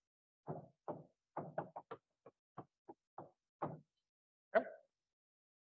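Chalk tapping and knocking on a blackboard during writing: about a dozen short, irregular taps, ending with a firmer knock about four and a half seconds in.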